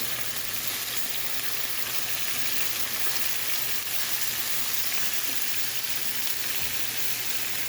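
Barbecue-sauced chicken wings frying on a Blackstone flat-top griddle: a steady, even sizzling hiss.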